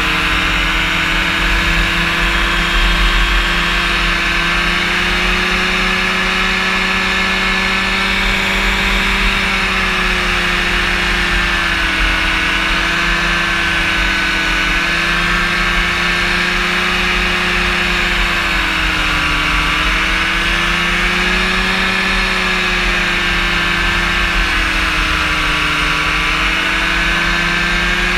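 Rotax engine and propeller of a powered parachute running steadily at cruise in flight, a continuous drone whose pitch wavers gently up and down every few seconds.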